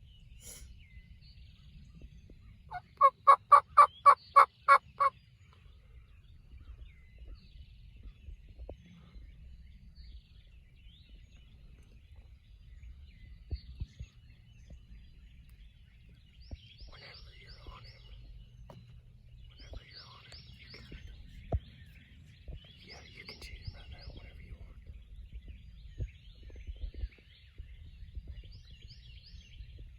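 Turkey calling: a loud run of about eight evenly spaced notes over about two seconds, about three seconds in. Small birds chirp faintly later on.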